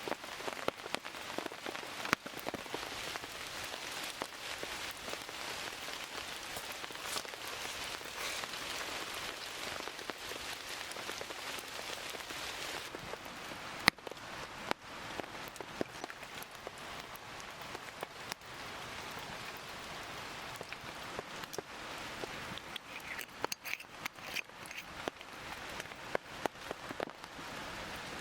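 Steady rain pattering, with many scattered sharp drips and ticks and one louder click about fourteen seconds in.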